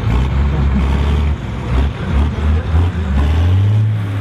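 John Deere tractor's diesel engine running hard under full load while pulling the sled, its pitch stepping up near the end.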